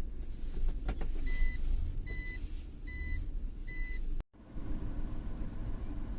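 Four evenly spaced high electronic beeps over a steady low rumble, with a sharp click just before them. The sound cuts out briefly about four seconds in, then the rumble carries on.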